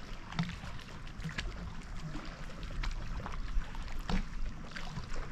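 Small lake waves lapping against a floating log and a paddleboard, with irregular little splashes and slaps of water.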